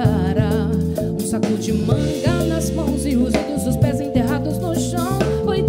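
Live band playing a soul-jazz song: a woman sings a melody with vibrato over sustained electric bass notes and a drum kit.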